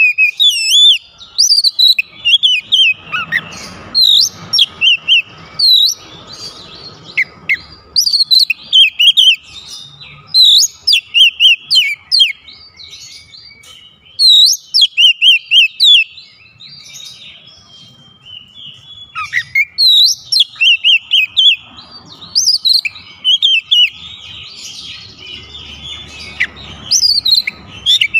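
Oriental magpie-robin singing: rapid, varied whistles and chirps in loud phrases of a second or two, separated by short pauses.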